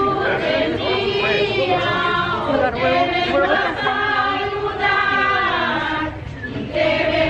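A group of voices singing a religious hymn together, in long held notes.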